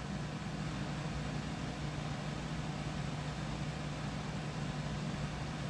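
Room tone: a steady low hum under an even hiss, unchanging throughout, with no other events.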